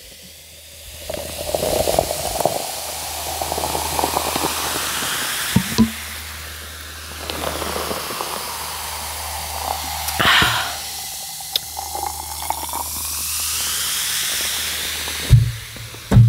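Liquid pouring and running into a container, a steady rushing hiss with a slowly shifting, gliding pitch. Two knocks near the end.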